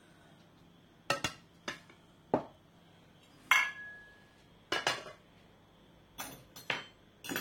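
Dishes and cutlery clinking on a table: about ten sharp knocks and clinks at irregular intervals. One about halfway through leaves a brief ringing tone.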